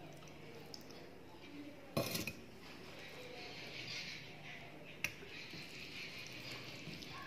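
A stainless steel bowl clatters down once against metal about two seconds in. Then fingers squish and mix soft khichuri on a steel plate, with one sharp click near the five-second mark.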